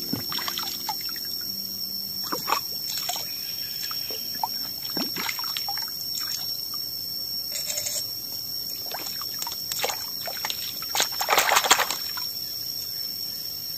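Stream water sloshing, trickling and pouring as a bamboo tube is rinsed and filled in shallow water, with a cluster of louder splashes about eleven seconds in as a bamboo stick is swept through the water.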